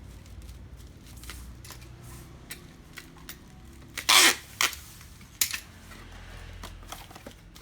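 Plastic anti-shock packing wrap being handled around a parcel: scattered crinkles and small clicks, with a loud short rustle about four seconds in and a few sharper clicks after it.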